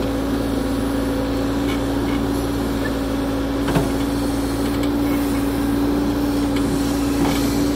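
Excavator running steadily under load while it digs and lifts soil: an even engine drone with a constant hum-like tone, and a faint knock about four seconds in.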